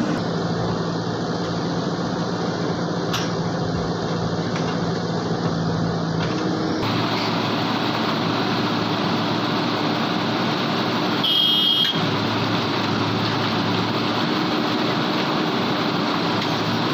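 Heavy diesel engine of earth-moving machinery running steadily; its tone shifts about six and a half seconds in. A brief high-pitched beep sounds about eleven seconds in.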